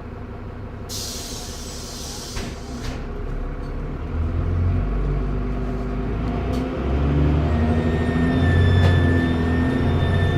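Air brake hiss about a second in, then the diesel engine of a TransBus Trident double-decker bus pulling away and growing louder. A steady high turbocharger whistle comes in about two-thirds of the way through.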